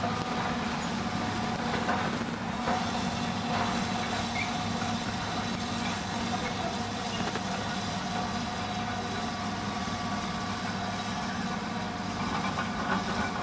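Hitachi hydraulic excavator's diesel engine running steadily while the machine digs and swings its bucket of soil, with a few brief knocks about two to four seconds in.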